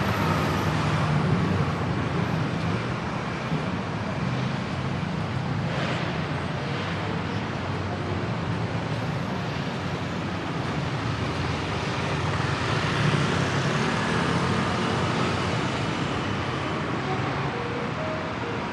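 Steady road traffic of cars and motorcycles passing by, a little louder about a second in and again around two-thirds of the way through.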